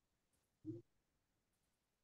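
Near silence, broken once, less than a second in, by a short low vocal sound like a brief murmur.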